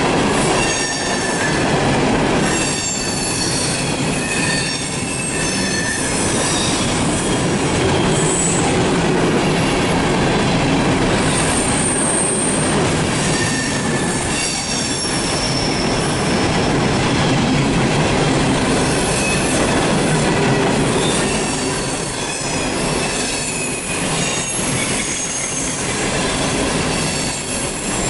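A train of empty CSX hopper cars rolling past close by: a steady rumble of wheels on rail with repeated short, high-pitched wheel squeals and some clicking over rail joints.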